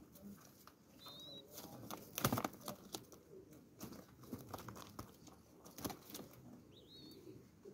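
Doves moving about on a straw-floored cage bottom: scattered rustling of straw and a few wing flutters, the loudest about two seconds in. There are two brief high chirps, one about a second in and one near the end.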